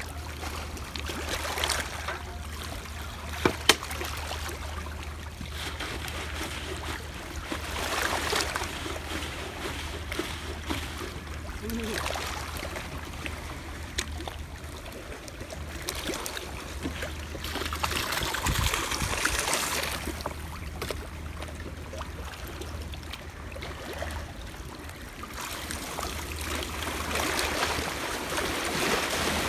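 Small waves washing over a rocky shore in swells every few seconds, with water gurgling and trickling as a plastic bottle is dipped and filled with seawater. There are two sharp knocks a few seconds in, and a steady low rumble underneath.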